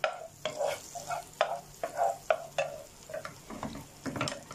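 Wooden spoon stirring a piece of butter around a non-stick pot, tapping and scraping about twice a second, over butter sizzling as it melts in the hot pot.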